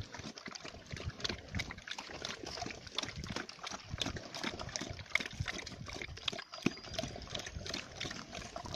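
A pig eating wet, soupy feed from a bowl: a steady run of irregular wet smacking and slurping sounds.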